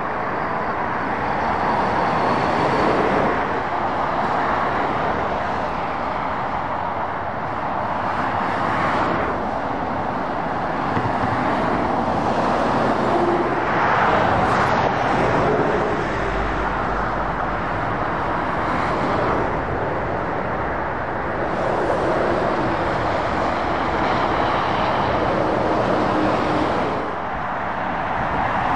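Road traffic of lorries and cars passing on a dual carriageway: continuous tyre and engine noise that swells and fades every few seconds as each vehicle goes by.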